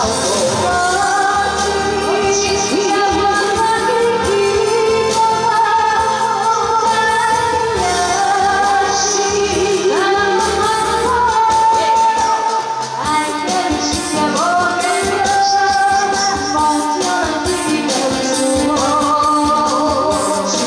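Women singing into handheld microphones over a loud backing track, their voices wavering with vibrato.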